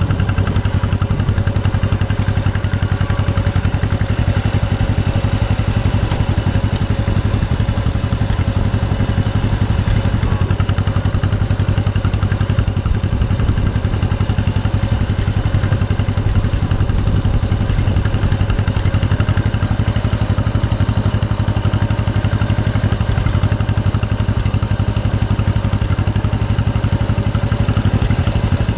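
Small farm tractor's engine running steadily at an even speed, with no rise or fall in pitch.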